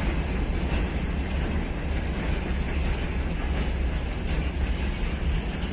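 Freight wagons rolling slowly past during shunting: a steady low rumble of wheels on rail.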